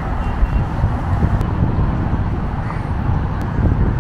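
Outdoor street ambience: a steady low rumble of road traffic.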